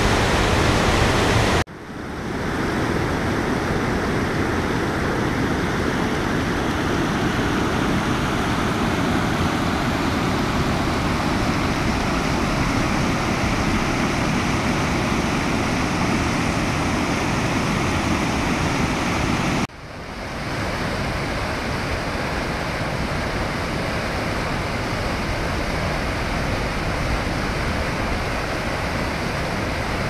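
Kivach waterfall and its rapids: a loud, steady rush of white water tumbling over rock. The sound drops out and fades back in twice, about two seconds in and about two-thirds of the way through.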